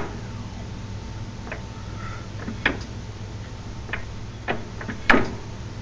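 Vehicle wheel and driveline being rocked back and forth by hand, giving about six sharp, irregularly spaced clicks, the loudest one near the end, over a steady low hum. This is the noise the owner is chasing; he is not sure it is normal.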